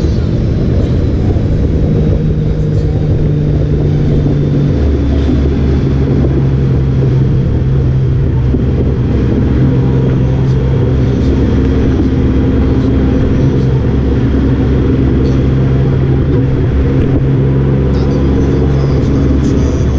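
Honda Gold Wing motorcycle riding at a steady speed, engine running with a steady note that shifts lower about five seconds in.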